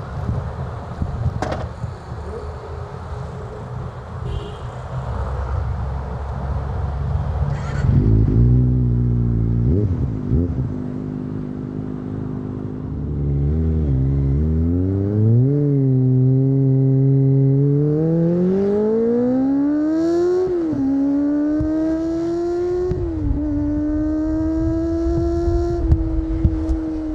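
Kawasaki ZX-25R inline-four engine through an Akrapovic exhaust: a low rumble at first, a few quick revs about eight seconds in, then a hard acceleration with the pitch climbing steeply and dropping sharply at two upshifts, after which it holds a fairly steady high note.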